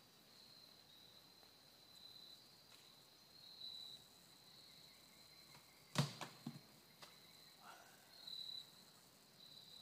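Insects chirring faintly in woodland, a steady high thin pulsing note. About six seconds in, a single sharp snap or knock, followed quickly by two smaller ones.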